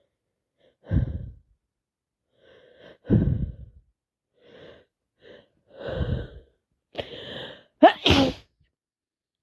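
A person's sneeze build-up: a series of short gasping in-breaths, then a loud sneeze about eight seconds in. The sneezing comes from a heavy head cold.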